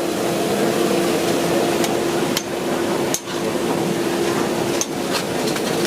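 Steady kitchen noise with a constant hum and a few sharp clanks of metal on metal.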